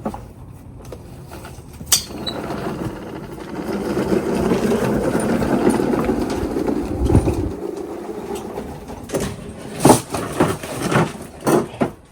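A push lawnmower being rolled along, its wheels and body rattling; the noise builds, then fades, and a few sharp knocks follow near the end.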